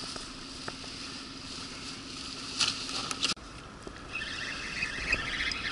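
A faint steady hum with a few sharp knocks and rattles, then, after an abrupt cut about three seconds in, river water rippling and trickling around an inflatable boat.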